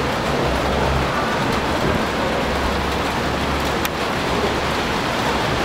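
Steady rumble and hiss of an R68 subway train approaching on the elevated steel structure, still some distance off.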